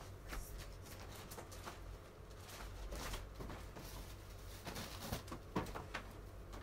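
Faint rustling and a scatter of light knocks, as of someone rummaging through belongings, over a low steady hum.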